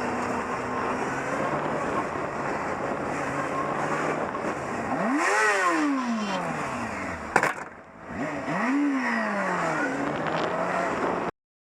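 Road traffic noise with a vehicle engine whose pitch rises and falls twice, as if revving up and easing off. A sharp knock comes between the two, about seven seconds in, and the sound cuts off suddenly just before the end.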